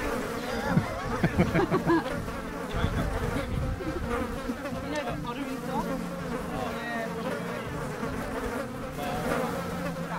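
Flying insects buzzing close by, their pitch wavering as they move around. There are a few low knocks in the first two seconds.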